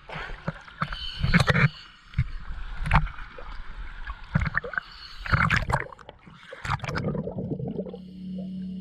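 Seawater slapping and sloshing against a camera held at the surface, with sharp splashes as small waves break over the lens. About seven seconds in the sound turns dull and muffled as the camera goes under water, and near the end a steady low tone comes in.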